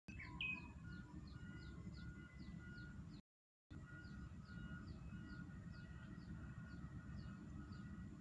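Faint bird chirping: a rapid series of short, high, falling notes, about three a second, over a steady low rumble. The sound drops out briefly a little over three seconds in.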